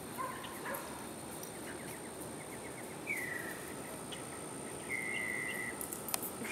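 Outdoor evening ambience: a steady high drone like insects, with a few short high whistled calls. One call falls in pitch about three seconds in, and one holds a flat note about five seconds in, after a quick run of faint ticks.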